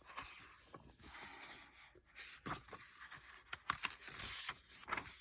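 Faint rustling and scraping of paper with a few short clicks: a picture book's page being turned and handled.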